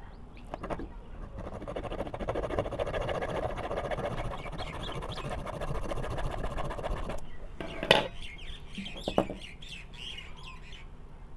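Small hacksaw blade rasping as it saws into the metal casing of a cylindrical lithium-ion cell from a laptop battery pack, for about six seconds. Then two sharp knocks about a second apart, the first the loudest sound here.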